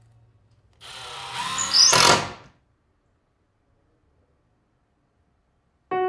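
Cordless drill-driver driving a screw into a calcium silicate fireplace board, running for under two seconds from about a second in, its whine rising in pitch, then stopping abruptly.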